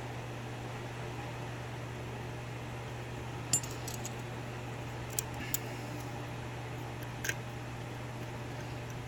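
A few small, sharp metallic clicks from a lock pick working the pins of a Euro cylinder lock during single-pin picking: one about a third of the way in, two close together past the middle, and one more near the end. A steady low hum, like a fan, runs underneath.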